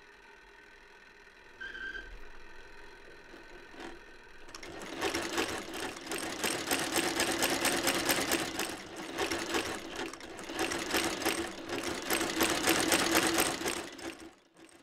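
Sewing machine running fast: a rapid, even clatter of needle strokes over a steady hum. It starts about four and a half seconds in and stops just before the end. Before that there is only a low hum.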